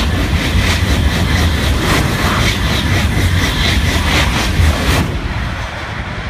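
TGV high-speed train passing at speed just below: a loud rush of wheel and air noise with a fast, regular clatter as the bogies go by. It cuts off sharply about five seconds in as the last car clears.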